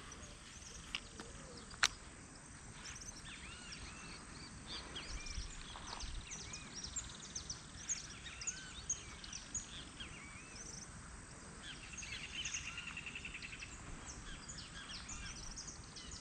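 Small birds chirping and calling around the water, many short chirps overlapping, with a fast rattling trill about three-quarters of the way through. Two sharp clicks sound in the first two seconds.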